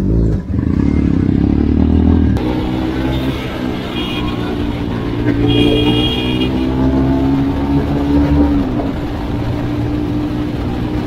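Motorcycle engine running as the bike rides along, with a vehicle horn tooting twice, briefly about four seconds in and a little longer about six seconds in. The engine note falls off about eight and a half seconds in as the throttle is eased.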